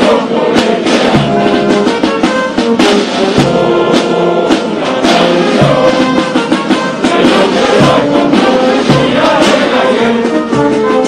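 Music with voices singing together, with brass and a drum beat.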